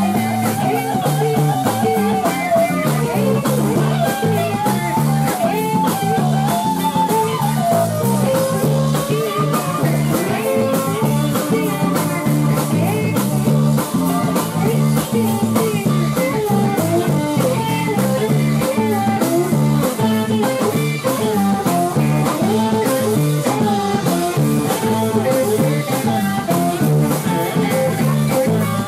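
A zydeco band playing live: piano accordion, electric guitars, bass guitar and drum kit, with a melodic lead line wandering above a steady beat.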